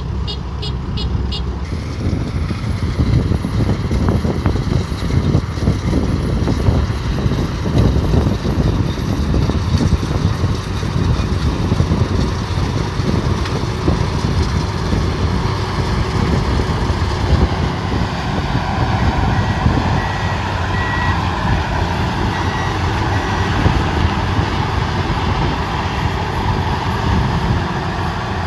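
Rice combine harvester running steadily with a heavy engine rumble and constant mechanical clatter. A rapid, evenly spaced warning beep sounds for about the first second and a half.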